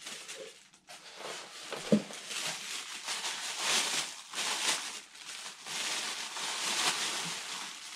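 Clear plastic bag crinkling and rustling as a juicer part is handled inside it, with a single sharp knock about two seconds in.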